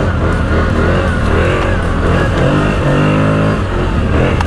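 CFMOTO CForce 1000 (X10) ATV's V-twin engine running under the rider, its revs rising and falling over and over as the throttle is worked on a rough trail. The engine is still within its first-service break-in and rev-limited.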